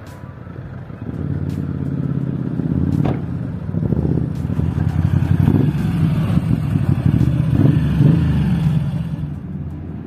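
A motor vehicle engine passing close by, growing louder, running loudest in the middle and fading away near the end, with a sharp click about three seconds in.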